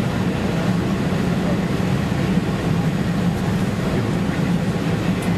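Steady cabin noise inside a Boeing 747-400 on approach: engines and rushing air, with a strong low hum.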